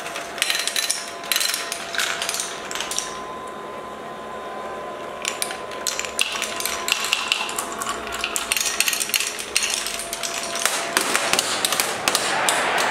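Glass marbles rolling and clattering down a marble run, many sharp clicks as they knock against the plastic spiral and wooden track pieces. The clicks thin out for a couple of seconds about a quarter of the way in, then come thick again.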